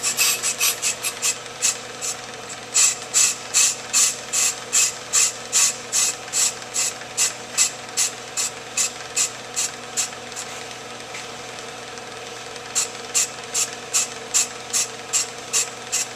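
Ammco brake lathe running with a hubless rotor turning on the spindle: a steady machine hum under a sharp, regular ratcheting click, about two to three clicks a second. The clicking stops for about two seconds past the middle, then starts again.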